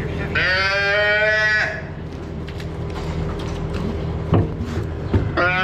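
Newborn calf bawling: one long call with a rising start about a third of a second in, and a second call beginning near the end. Two short knocks come in between, over a steady low hum.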